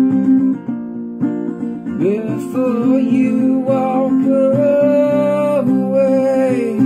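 Capoed acoustic guitar strummed in a steady chord pattern. About two seconds in, a man's singing voice comes in with a rising slide into long held notes, and it stops just before the end.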